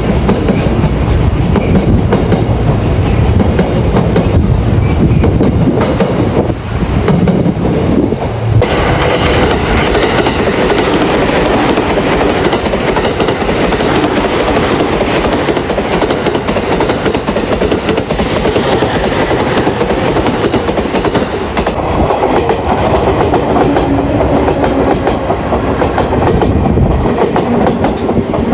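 Electric trains passing close by, their steel wheels clattering over rail joints in a continuous run of knocks. About 8.5 seconds in, the sound changes abruptly to a different train passing.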